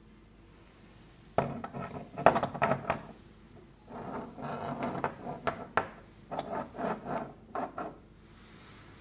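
Brass gate valves with cast red handwheels being handled on a table: repeated metal clinks and knocks with rubbing, starting about a second and a half in and stopping shortly before the end.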